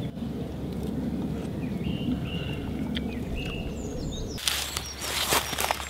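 Birds chirping in short calls over a low outdoor rumble; a little over four seconds in, a louder rustling and scraping starts, with several sharp clicks.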